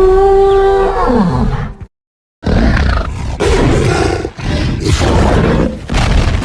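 Disney's Iguanodon creature sound effects: a pitched, held bellow that drops in pitch as it ends, then after a short gap a longer, rougher roar that comes in several surges.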